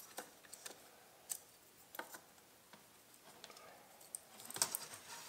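Faint, scattered small clicks and handling noise as a foil-wrapped CCFL backlight lamp is pressed by hand into a plastic LCD frame, with a quick cluster of clicks near the end.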